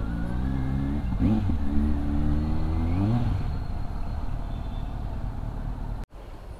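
Kawasaki Z900's inline-four engine pulling away, revs climbing steadily for about three seconds, then dropping back to a quieter run. The sound breaks off briefly near the end.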